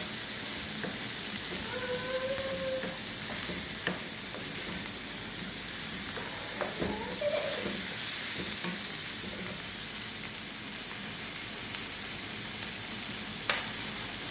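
Chicken hearts and onions sizzling in oil in a nonstick frying pan, stirred with a wooden spatula that clicks and scrapes against the pan a few times.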